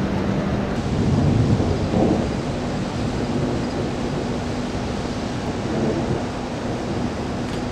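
Thunder rumbling from nearby lightning, swelling about a second in and easing off by the third second, over a steady background hiss and a faint low hum.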